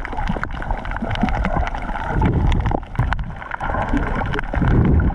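Muffled underwater sound picked up by an action camera in a waterproof housing: a continuous rush of water with many scattered clicks and crackles, and low rumbling swells that build about two seconds in and again near the end.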